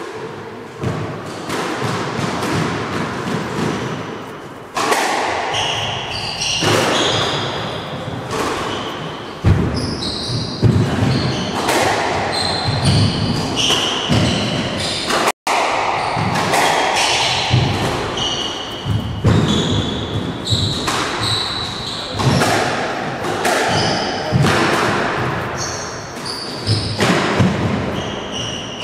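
A squash rally: the ball cracking off racquets and the court walls in quick, irregular hits, with rubber-soled shoes squeaking on the wooden floor between strokes.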